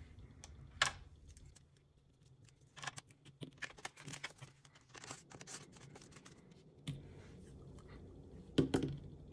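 Light rustling and crinkling of a paper envelope and polymer banknotes being handled and tucked away, with a few sharp taps and ticks, busiest in the middle.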